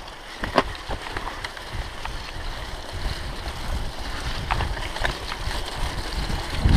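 Wind buffeting the camera microphone and mountain bike tyres rumbling over a gravel forest track, growing louder as the bike picks up speed, with scattered sharp clicks and rattles from the bike.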